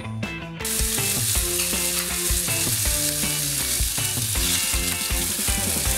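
Soaked, drained white rice sizzling in hot oil in a nonstick frying pan. The sizzle starts suddenly about half a second in as the rice goes into the pan, then holds steady.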